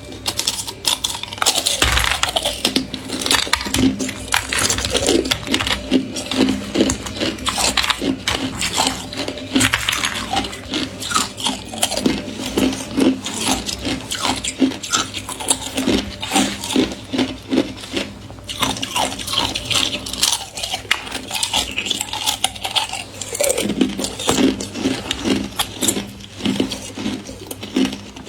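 Thin ice being bitten and chewed close to the microphone: a dense run of brittle cracks, snaps and crunches, coming in rhythmic bursts.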